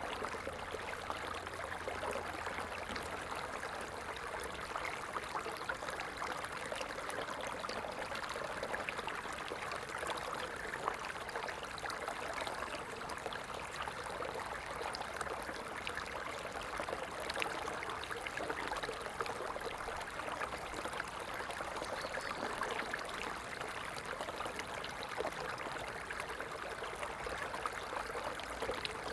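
Small stream running steadily, water trickling and splashing over stones with a constant rushing and fine droplet ticks.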